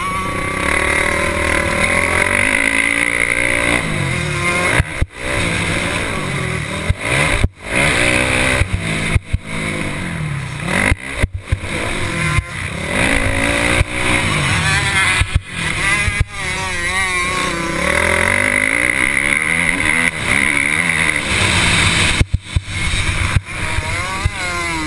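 Motocross dirt bike engine revving up and down over and over as it is ridden hard round the track, shifting and throttling between jumps and turns, with wind noise; the sound dips sharply for split seconds several times.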